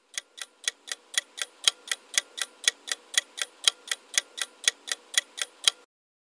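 Clock-ticking sound effect of a quiz countdown timer: fast, even ticks about four a second, stopping shortly before the end.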